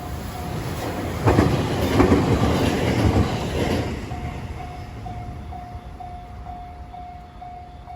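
A JR 521 series electric train passes over a Japanese level crossing. Its wheels are loudest from about a second in until about four seconds, clattering over the rail joints, then the train noise fades away. Throughout, the crossing's warning bell rings steadily at about two strikes a second.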